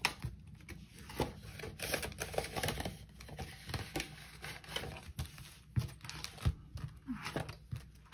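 Paper banknotes and cash envelopes being handled by hand as bills are counted and sorted: irregular crisp rustling and crinkling with many short sharp clicks.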